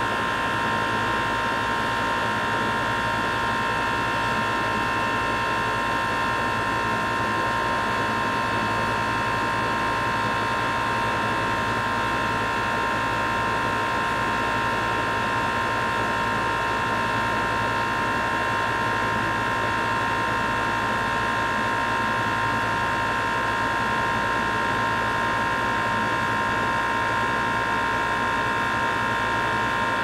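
Heat pump running: a steady mechanical drone with an even, high whine that does not change.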